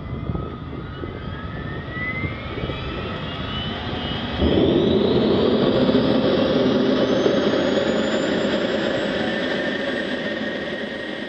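Jet turbine engine spooling up: a whine climbs steadily in pitch over a rushing roar. About four seconds in, a sudden, louder rush joins it, and the whole sound tails off near the end.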